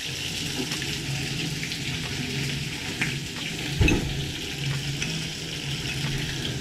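Metal spoon stirring a cornstarch slurry in a paper cup, with faint light clicks and scrapes, over a steady hiss and low hum from the gas stove and the pot of sauce simmering on it. A dull thump about four seconds in.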